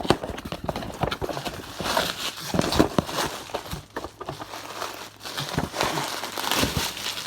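Plastic packaging of a 50-pack of CD-Rs being handled and cut open, crinkling and rustling with a run of irregular knocks and taps.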